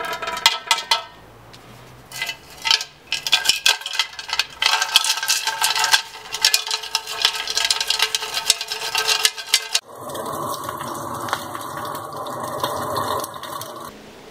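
Loose rust and debris rattling and scraping inside the steel fuel tank of a British Seagull outboard as it is shaken, the empty tank ringing with each jolt. About ten seconds in, this gives way to a steady noise that lasts about four seconds.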